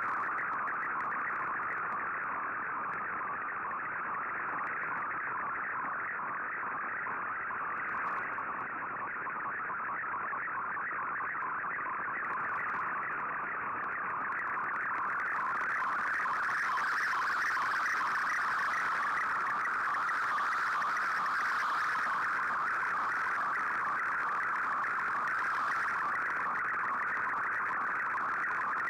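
MFSK digital picture transmission from a shortwave broadcast, heard through an Icom IC-R8600 receiver: a steady, dense data warble that carries a colour image being decoded line by line.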